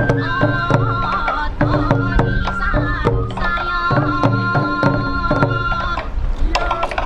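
Sansa odori festival music: taiko drums beating a fast, steady rhythm under a high bamboo flute melody.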